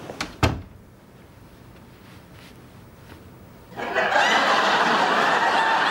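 A door shuts with two quick knocks near the start; after about three seconds of quiet, a studio audience breaks into loud, sustained laughter.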